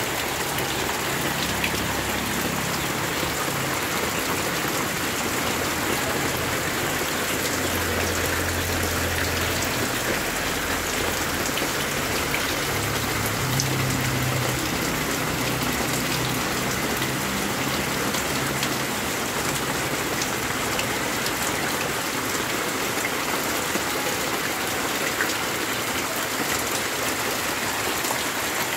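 Heavy rain falling steadily onto brown floodwater.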